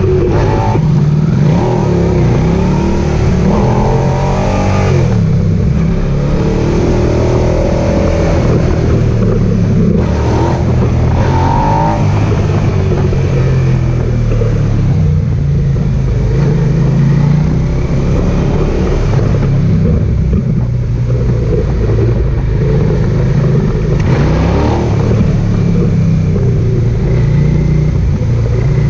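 Suzuki SV650S's V-twin engine running under way, heard from the tank with wind noise, its note rising and falling with the throttle.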